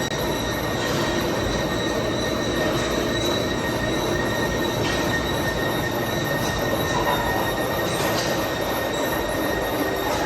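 A machine tool running and cutting metal, a dense steady mechanical noise with a steady high whine over it and a few faint ticks.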